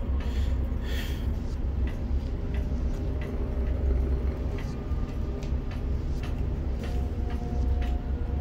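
Steady low rumble of a dockside container crane's machinery, heard from inside the operator's cab, with scattered light clicks and a faint steady whine coming in near the end.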